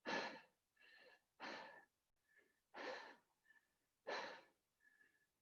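Heavy, out-of-breath breathing of a person doing burpees, winded from the exertion. There are four hard breaths about a second and a half apart, with fainter breaths in between.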